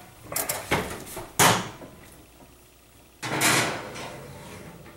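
An oven door and rack being handled while a cast iron skillet is loaded into a kitchen oven. There are a couple of light knocks, then a sharp clunk about a second and a half in, and a longer sliding clatter a little after three seconds that fades out slowly.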